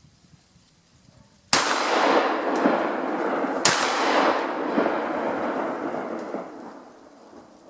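Two 12-gauge shotgun slug shots about two seconds apart, each followed by a long rolling reverberation that fades out over about three seconds after the second shot.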